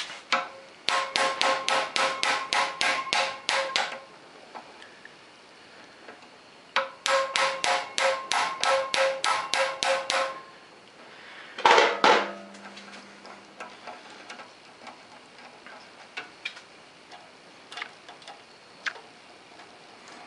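Hammer tapping on a steel hand impact driver to shock loose a rust-seized screw holding a lathe's rack. Two runs of about a dozen quick, ringing metal strikes, about four a second, come a few seconds apart. About twelve seconds in comes one louder clank with a brief low hum after it.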